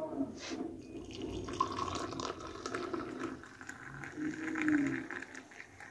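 Black coffee poured from a metal pot into a ceramic mug, a thin stream splashing as the cup fills.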